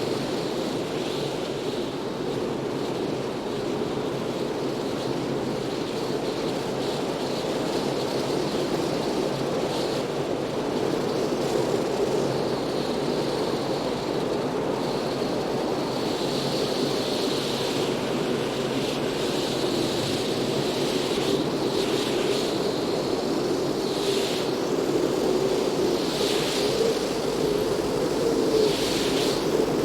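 Wind buffeting a car while driving: steady wind and road noise, with gusts swelling and fading more often in the second half.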